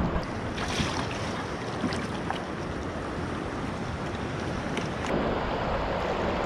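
River current rushing and splashing around a microphone held at the water's surface, with a few light splashes and some wind on the microphone.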